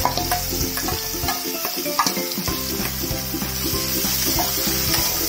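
Chopped onions sizzling in hot coconut oil in an aluminium kadai as they are tipped in and stirred with a steel spatula, with a few sharp clinks of the spatula on the pan.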